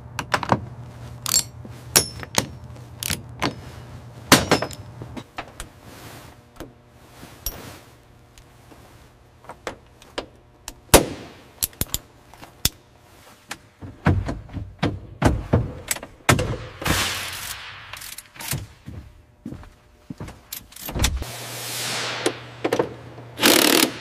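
Workshop tool and handling noise: a run of sharp metallic clinks, taps and knocks from wrenches on metal fittings. There are two short hissing stretches in the second half, over a steady low hum that drops out in the middle.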